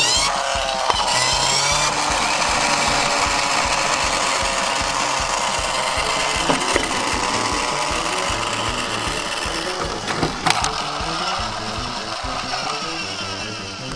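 Toy vehicle's small motor and gear train whirring steadily, spinning up over the first second or two and easing off slightly near the end, with a few sharp clicks. Background music plays underneath.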